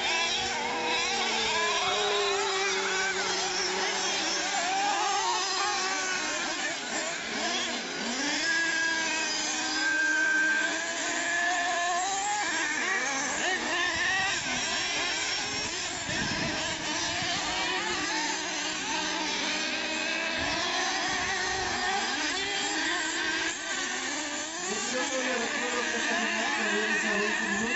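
Radio-controlled off-road monster trucks racing: several small motors buzzing at high revs, their pitch rising and falling as the trucks speed up and slow down.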